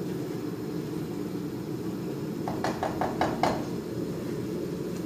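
A spatula stirring a pot of stew and knocking against it in a quick run of about five light knocks around the middle, over a steady low hum.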